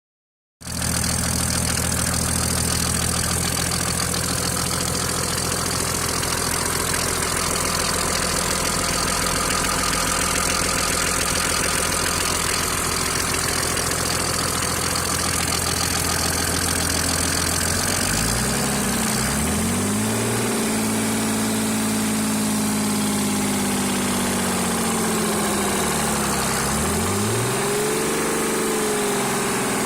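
Mercedes-Benz W463's OM603 straight-six turbodiesel idling steadily, then revved up and down several times from about 18 seconds in. It carries a knock that speeds up with the revs and goes away when the clutch is pressed; the owner traces it to damage from an earlier oil loss, with oil pressure and bearings checked OK.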